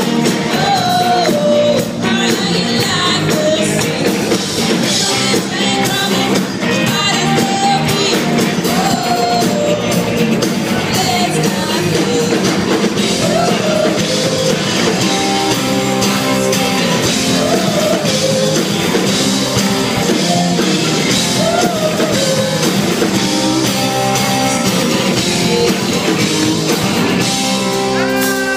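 Live rock band: a woman singing lead while strumming an acoustic guitar, backed by electric bass and the rest of the band.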